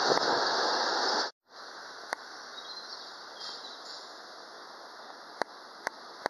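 Freight train running past close by: a steady rush of wheel and rail noise with quick clicks, which cuts off abruptly a little over a second in. After that, a much quieter steady hiss with a few sharp clicks.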